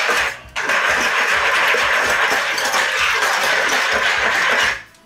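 Wire whisk beaten fast through buttermilk brine in a plastic bowl: a steady, rapid rattle and slosh of wire against plastic and liquid, breaking off briefly about half a second in and stopping shortly before the end. It is the brine being stirred so the salt and pepper spread through it, whipping the buttermilk to a froth.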